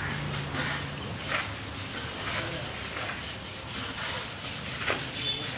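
An elephant's wet hide being scrubbed by hand in repeated, irregular rubbing strokes, with water hissing from a hose.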